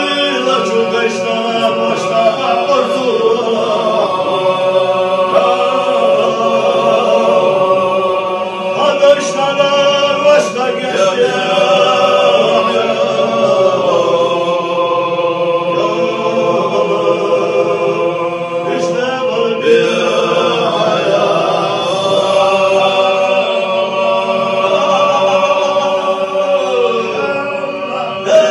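Unaccompanied men's voices chanting a nazm, a Chechen Sufi devotional song, with long held notes in a slow melody.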